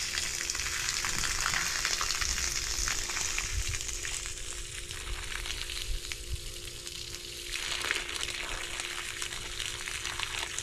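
Water hissing steadily out of a garden hose spray nozzle and splashing onto gravel, at lower pressure than it should have; the owner suspects air in the line after work on the water pipe. The hiss thins for a moment just past the middle, then picks up again.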